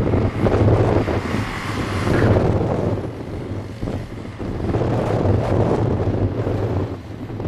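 Strong gusty wind buffeting the microphone, a loud rumbling roar that swells and dips with the gusts.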